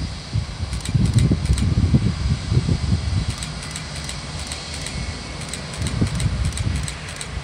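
Distant Airbus A320 jet engines whining steadily, with gusty wind rumbling on the microphone.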